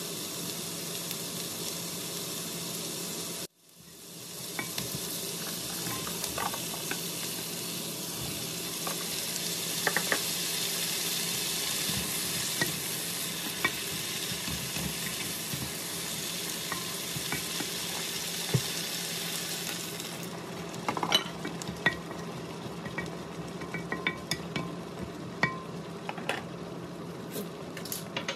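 Pumpkin, onion and green beans sizzling in a nonstick wok, stirred with a wooden spatula that scrapes and taps against the pan. A steady frying sizzle cuts out briefly about three and a half seconds in. After about twenty seconds the sizzle eases and the spatula's taps stand out more.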